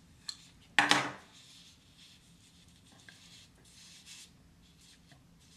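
Rustling and rubbing as a fabric headband is pulled on over hair by hand, loudest in one short burst about a second in, with softer rustles later.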